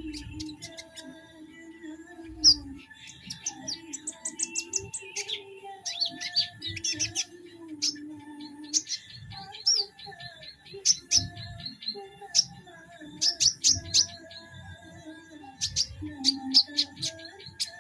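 A young konin songbird chirping and singing: quick series of sharp, high notes and short trills, broken by brief pauses.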